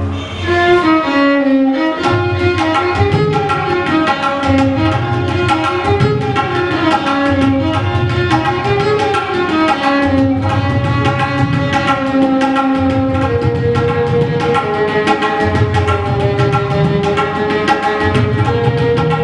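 Violin playing a raga melody in gliding, ornamented phrases, accompanied by tabla. The tabla keeps up dense rhythmic strokes, with repeated deep notes from its bass drum.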